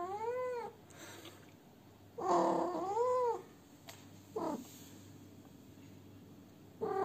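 Female domestic cat in heat yowling: four drawn-out calls that rise and fall in pitch, a second or two apart, the longest lasting about a second.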